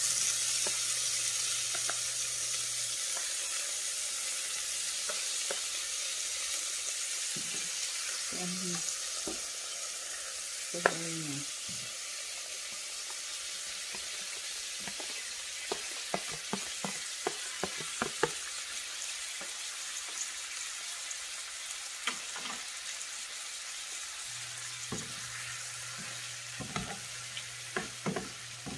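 Chopped tomatoes, carrots and bell pepper sizzling in hot oil with onions in a frying pan, loud as they go in and settling to a steadier sizzle. A metal spoon scrapes the plate and clinks against the pan as the vegetables are pushed in and stirred, with more taps in the second half.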